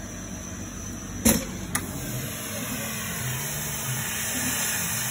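CO2 laser cutter running a cutting job on plywood: a steady hum and hiss of the machine, with two sharp clicks a little over a second in. No high-pitched squeal from the laser tube head, as expected with fresh distilled cooling water.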